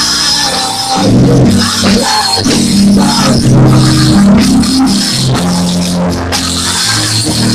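Worship song music without voices: an instrumental passage with drums keeping a steady beat under a moving bass line.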